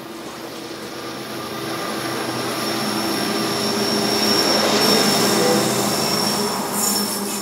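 Canadian Pacific diesel locomotive and coal train passing close, with engine hum, a steady high whine and rail noise. It grows louder to a peak about two-thirds of the way through, then fades near the end.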